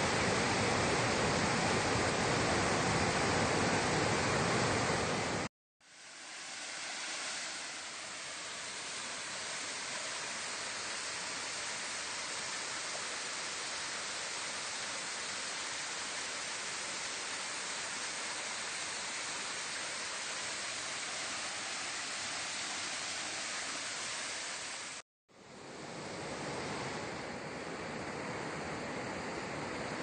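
Rushing white water of a rocky stream and small waterfall: a steady, even roar of water. It cuts out twice for an instant, about a fifth of the way in and near the end, and the first stretch is louder and fuller than the rest.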